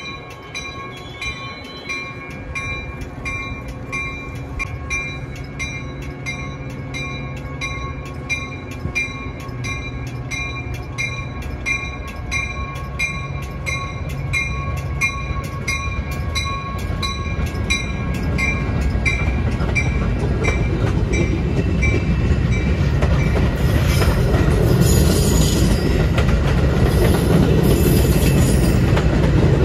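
A railroad bell rings steadily at about two strokes a second and fades out around twenty seconds in, while the rumble of an approaching train grows louder. The train then passes close, with high wheel squeal in the last few seconds.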